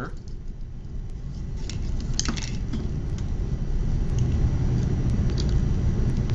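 Small clicks and rattles of battery wires being hooked up to a small DC motor, over a low rumble that grows louder in the first couple of seconds and then holds steady.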